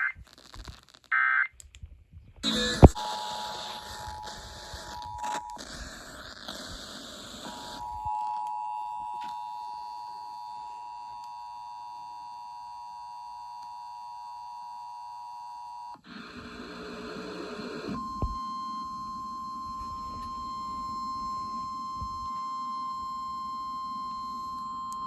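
Emergency Alert System tones received over the air: the last two short, screechy SAME data header bursts, then the steady two-tone EAS attention signal, partly under radio static at first. After a burst of static about 16 seconds in, it switches to the single steady tone of the NOAA Weather Radio warning alarm.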